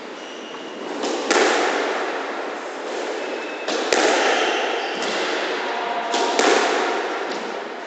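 Squash rally: the ball is struck by rackets and hits the walls, each loud crack ringing on in the court's echo. Three main hits come about two and a half seconds apart.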